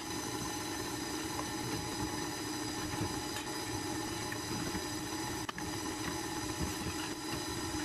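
KitchenAid stand mixer running steadily, its motor whining as the beater turns through batter in the steel bowl, with a single click about five and a half seconds in.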